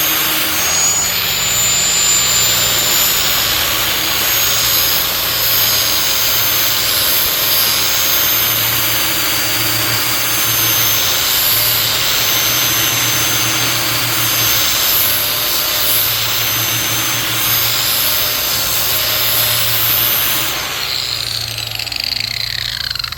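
Angle grinder with a 40-grit zirconia flap disc running and grinding the cutting edge of a steel mower blade, a steady loud whir with a harsh grinding noise. Near the end the grinder is switched off and its whine falls in pitch as it spins down.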